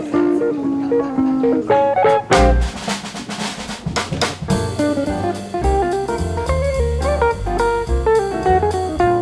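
Background music: plucked guitar over a drum kit with a steady beat.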